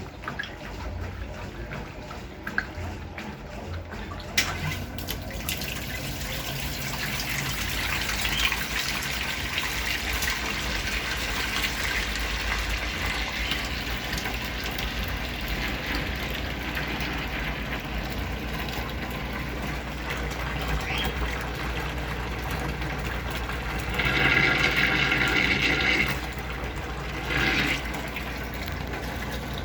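Brastemp Clean 6 kg washing machine filling with water, a steady rush of water starting about four seconds in, with a louder hiss for about two seconds near the end.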